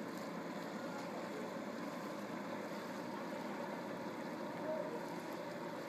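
Fishing trawler's diesel engine running steadily as the boat manoeuvres slowly, heard across open water with a constant background hiss.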